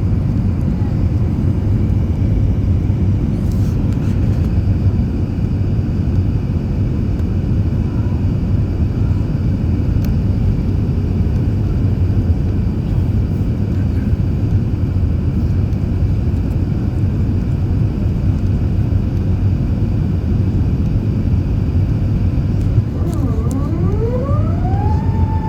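Emirates Airbus A380 on its landing approach: a steady low rumble of engines and rushing air. Near the end a tone dips, then rises and holds steady at a high pitch.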